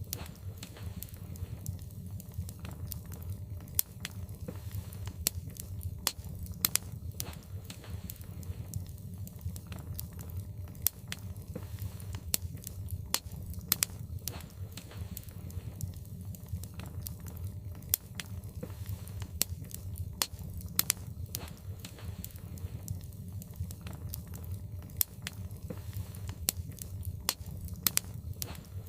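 Wood logs burning in a fireplace, crackling with frequent irregular sharp pops over a steady low rumble of the fire.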